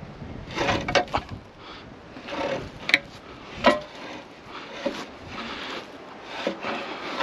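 Scraping and several sharp metal knocks as the heavy cast-iron front end of a Fordson Super Major is shifted against its steel frame rails.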